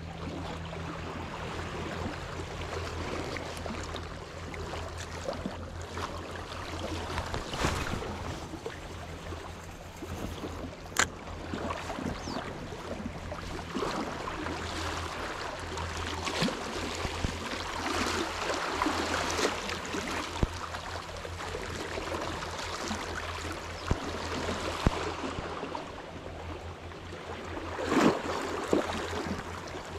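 Small sea waves washing and lapping against a rocky shoreline, over a steady low hum, with a few sharp clicks: one about ten seconds in and a couple near the end.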